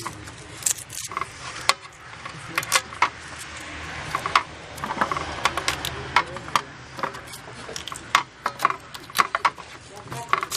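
Knives cutting and peeling firm raw green mangoes, with irregular crisp cuts and sharp clicks, some of them from a blade tapping a steel plate.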